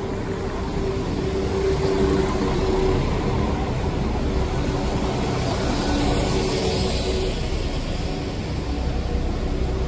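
West Midlands Railway Class 172 diesel multiple unit pulling into the platform close by. Its diesel engines run with a steady tone over the rumble of wheels on the rails.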